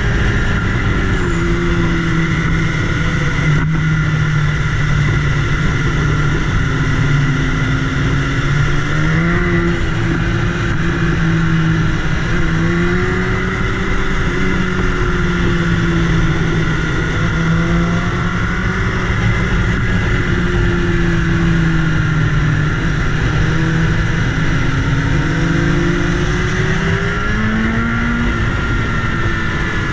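BMW S1000RR sportbike's inline-four engine running under way, heard from the bike itself over steady wind rush. Its pitch shifts with the throttle and rises noticeably about nine seconds in and again near the end.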